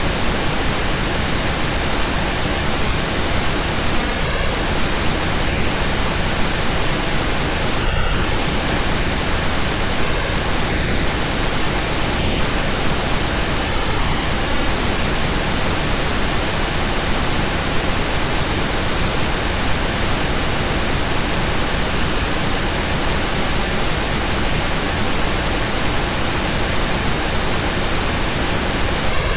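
Steady pink-style noise, a constant hiss across all pitches, with short high tones fading in and out every second or two.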